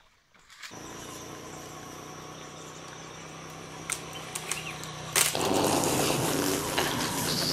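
Outdoor ambience with a steady, thin, high drone of insects, a few sharp clicks, then a sudden loud rustling rush about five seconds in that carries on to the end.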